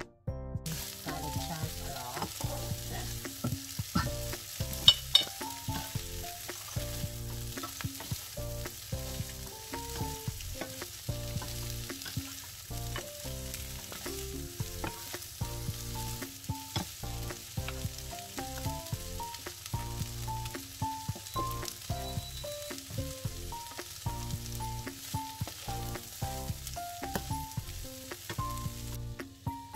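Radish cake, bean sprouts and chives sizzling in a hot frying pan while being stir-fried, with a wooden spatula scraping and knocking against the pan. There is one sharp knock about five seconds in, and the sizzle stops shortly before the end.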